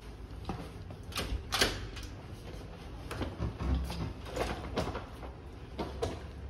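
Footsteps and a wheeled hard-shell suitcase being moved across a wood-laminate floor to a room door: a series of light, irregular knocks and clicks a few tenths of a second apart.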